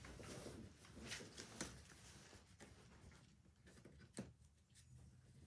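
Faint scratching of oil pastels rubbing across paper, with a few light clicks and taps, the sharpest about a second and a half in and again just after four seconds.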